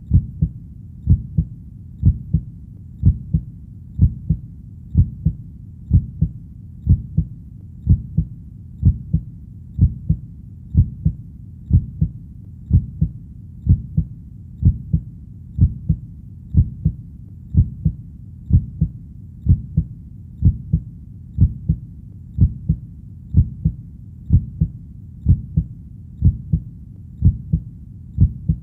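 Heartbeat sound: a steady double thump (lub-dub) about once a second, deep and low-pitched, over a steady low background rumble.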